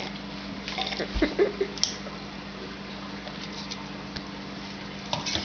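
A few small clicks and rustles and a soft low thump about a second in, over a steady low hum; a short louder noise comes just before the end.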